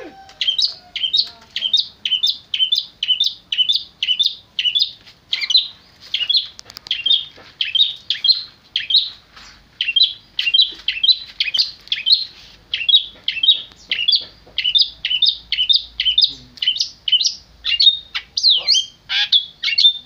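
Caged long-tailed shrike (cendet) calling: a fast, even run of short, high, down-slurred chirps, about two or three a second, with a few longer notes sweeping lower near the end.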